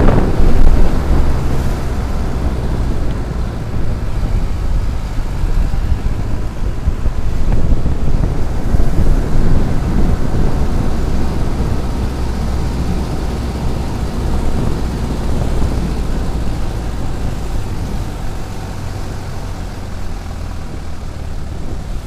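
Vehicle engine running steadily while driving, with road and wind noise on the microphone. Loudest in the first seconds, easing slowly toward the end.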